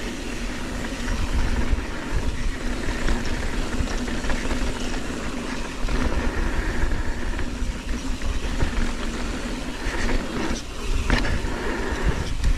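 Mountain bike riding a dirt trail: wind rushing over the camera microphone, with the tyres rolling and the bike rattling over roots and rocks. A couple of sharp knocks about ten seconds in.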